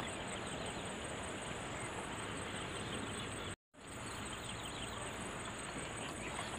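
Steady outdoor background hiss with a faint high insect drone. The sound cuts out completely for a split second a little past halfway.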